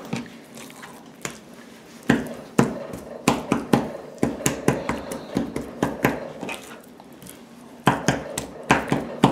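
Metal fork stabbing raw chicken thighs on a cutting board: a run of sharp taps and knocks as the tines go through the meat and strike the board. It is sparse for the first couple of seconds, then comes a few times a second.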